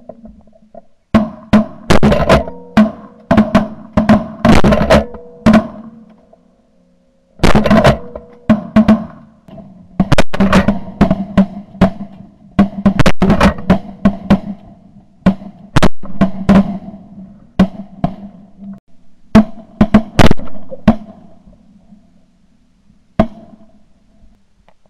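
Shotgun fired in several quick volleys of sharp, loud blasts, with steady tones sounding under some of them.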